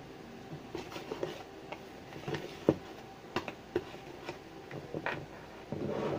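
Wire whisks and mixing bowls being handled, giving light, irregular clicks and knocks with a louder knock about halfway through. Near the end there is a second of denser clatter as a bowl is lifted.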